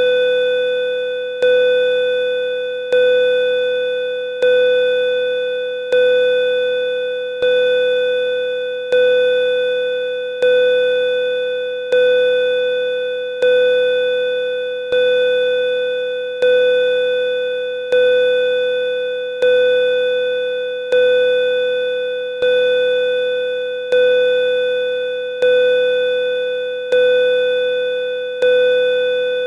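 Pulsing bell tone: one steady-pitched bell note with bright overtones, struck about every second and a half, each strike fading away before the next.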